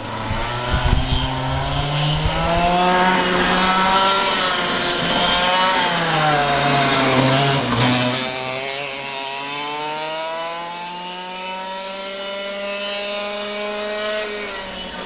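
Racing kart engine revving up and falling back twice as the kart slows and accelerates, then a long steady climb in pitch as it pulls away, a little quieter in the second half.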